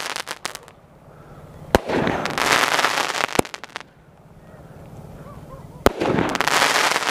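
12-shot aerial firework cake firing. Two shots come about four seconds apart, each a sharp bang followed by about two seconds of crackling as the shell bursts into sparks. A few small pops sound right at the start.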